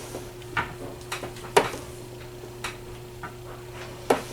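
Five or so irregular light clicks and taps, the sharpest about a second and a half in and just before the end, over a steady low electrical hum.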